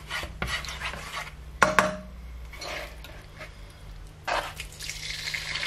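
A plastic spatula knocking and scraping around a nonstick frying pan of hot oil, with one sharp knock about two seconds in. Near the end, sliced ox cheek beef slides off a plastic chopping board into the hot oil and starts to sizzle.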